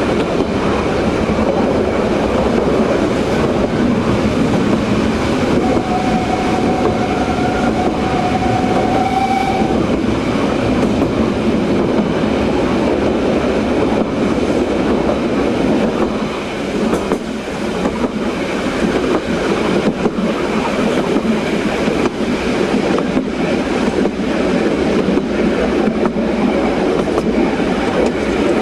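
Metre-gauge train hauled by a steam locomotive running steadily along the line, a continuous rumble with the wheels clattering over the rail joints. A thin steady tone sounds for about four seconds a few seconds in.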